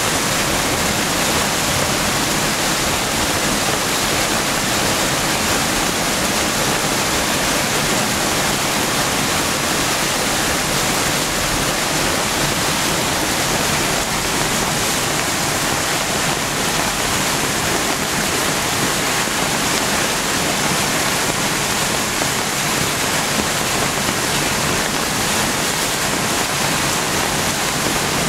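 Stormwater runoff from parking lots rushing and churning as white water through a concrete energy dissipation structure and down a rock-lined channel: a loud, steady rush with no let-up.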